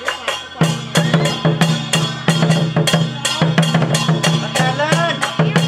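Lion-dance percussion: a drum beaten in a quick steady rhythm with clashing cymbals. It drops out briefly at the start and comes back in about half a second in.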